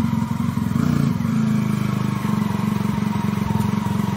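Suzuki motorcycle engine idling steadily, with a slight rise in revs about a second in.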